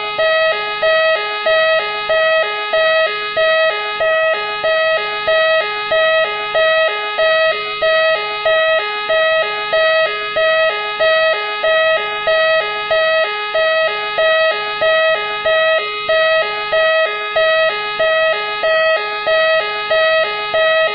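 Machine X police-car siren sounding continuously: a two-tone electronic wail that swaps between a lower and a higher note in an even cycle a little faster than once a second, repeating without a break.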